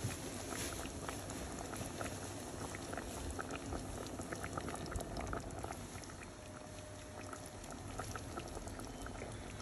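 Tripe in tomato sauce simmering in a steel pot, a steady bubbling with many small scattered pops.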